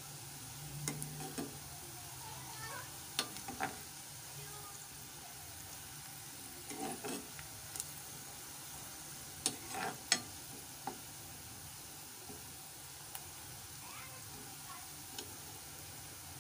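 Sliced onions frying in oil in a metal pan with a steady, gentle sizzle, browning toward light brown. A metal ladle scrapes and clinks against the pan at irregular moments as the onions are stirred.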